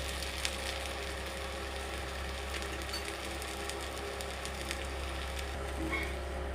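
Oil sizzling with light crackles on a hot dosa tawa around small rava (semolina) adai cooking over medium heat, steady throughout.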